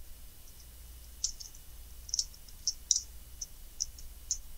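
Computer keyboard keys clicking as a few characters are typed: about eight light, uneven keystrokes, starting about a second in.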